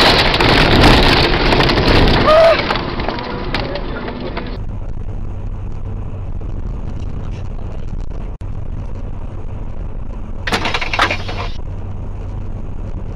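Dashcam audio: a loud, noisy stretch for the first four and a half seconds cuts off abruptly. Then comes steady road and engine noise inside a car driving on a motorway, with a brief cluster of clicks about ten and a half seconds in.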